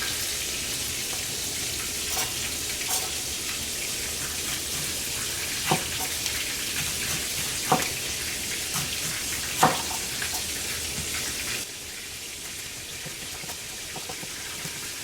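Battered fish frying in hot oil in a cast iron pan: a steady sizzle with a few sharp clicks. The sizzle drops suddenly to a quieter level about three quarters of the way through.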